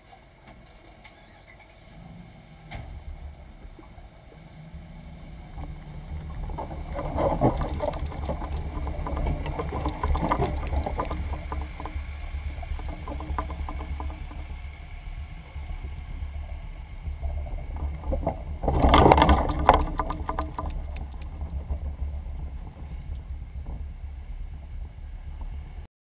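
Muffled low rumble of a personal watercraft moving slowly under engine power, growing louder over the first several seconds, with a louder surge about three-quarters of the way through.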